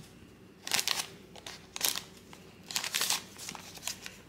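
Paper butter wrapper crinkling in several short bursts as slices of butter are added to a bowl of flour.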